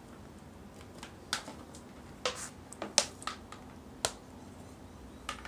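About half a dozen sharp clicks and taps at uneven intervals as hands pick up and handle a tablet computer and tap its screen.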